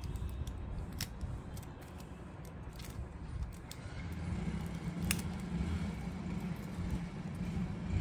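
A few light clicks and taps of the DJI Mini 4 Pro's plastic body and arms being handled, over a steady low background rumble.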